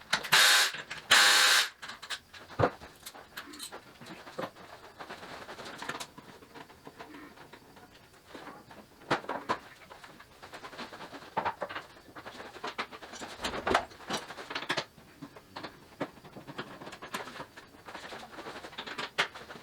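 Hand work on a motorcycle: two loud rasping noises in the first two seconds, then scattered light clicks and knocks of parts and tools being handled.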